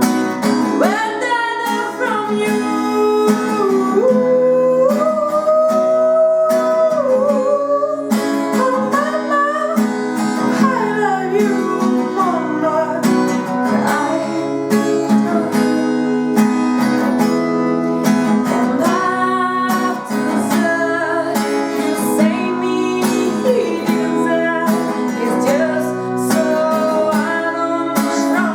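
A song sung to strummed acoustic guitar, with a single voice carrying a gliding, held melody over the chords.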